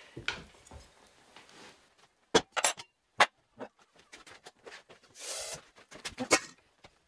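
Scattered sharp clicks and taps, with a short scratchy rustle about five seconds in: kittens moving about on a tabletop among ceramic and stainless steel bowls, one pushing its head into the steel bowl.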